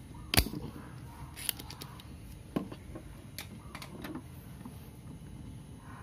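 Spring-loaded desoldering pump firing with one sharp, loud snap about half a second in as it sucks molten solder off the pins of a mouse micro switch being removed, followed by a few lighter clicks as the pump and board are handled.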